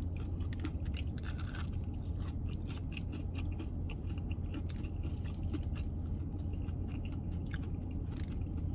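Close-miked chewing of crispy fried chicken wings, with many irregular small crunches and mouth clicks. Underneath runs a steady low hum from an air conditioner.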